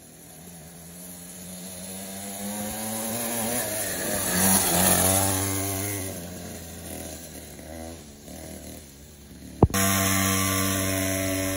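A 49cc pocket bike's small two-stroke engine approaching and passing by, getting louder to a peak about halfway through and then fading as it goes away. Near the end a sharp click, then the engine is heard close and running at a steady pitch.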